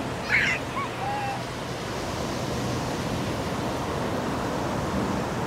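Steady wash of ocean surf with wind, an even roar with no distinct events. Brief snatches of voices are heard in the first second or so.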